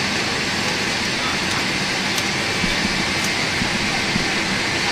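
Steady airliner cabin noise inside a Boeing 747-8: an even rushing hiss of cabin air, with a couple of faint clicks about two and three seconds in.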